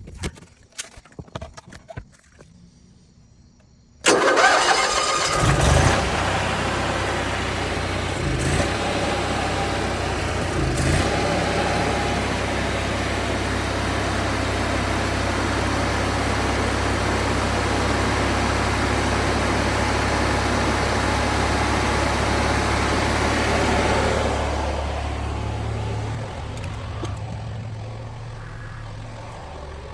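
Onan Emerald III RV generator starting suddenly about four seconds in, after a few clicks, then running steadily with a low, even hum. It gets noticeably quieter in the last few seconds.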